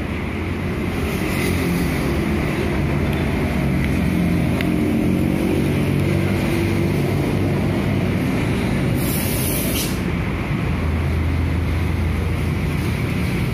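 Busy road traffic with cars and motorcycles passing close by, their engines running under a continuous rumble of traffic noise. A short high hiss comes about nine seconds in.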